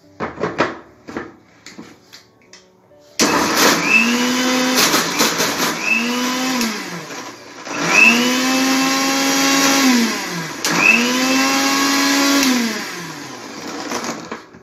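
Kenstar mixer grinder running in four short pulses, its motor whine rising as it spins up and falling as it slows each time, churning chilled cream into butter. A few clicks and knocks come before the motor starts, about three seconds in.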